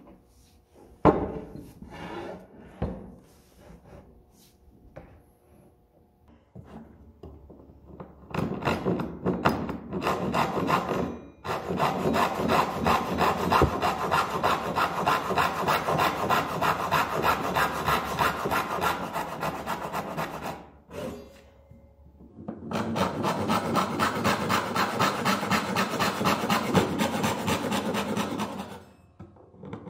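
A few knocks at the start, then a fine-toothed hand saw crosscutting a solid wood board in long runs of quick, even rasping strokes, with a short pause partway through. The saw is dull and does not cut cleanly.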